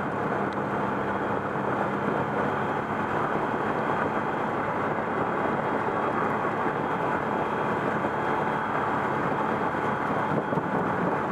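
ATV engine running steadily while riding along a sandy dirt trail, with wind rushing over the microphone.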